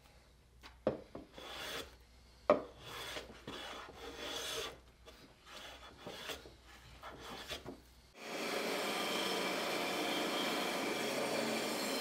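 Hand plane taking irregular shaving strokes across a wooden board, with two sharp knocks in the first few seconds. About eight seconds in, this gives way abruptly to a steady bandsaw running as it cuts a board.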